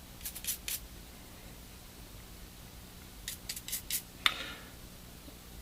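Small tools and phone parts being handled on a work surface: a quick run of three short scraping clicks, another run of about four a little past three seconds in, then one sharper click.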